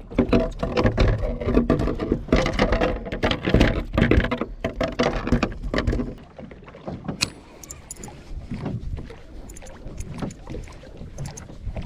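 Sounds aboard a fishing boat at sea. For about six seconds the boat's motor is running while water knocks and splashes against the hull, then it turns quieter, with lighter water noise and scattered knocks.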